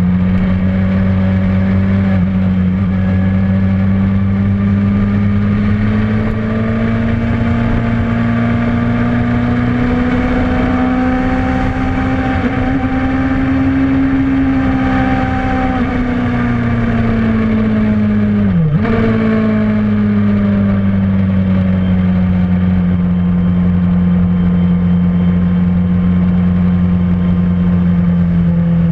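Suzuki GSX-R's inline-four engine running held well above idle, its pitch climbing slowly and easing back down. About two-thirds through there is one brief sharp dip in revs, like a stumble, on a motor the owner calls bad.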